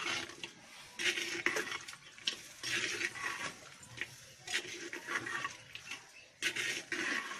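Metal ladle stirring and scraping mutton gravy in a clay pot, in repeated short swishes.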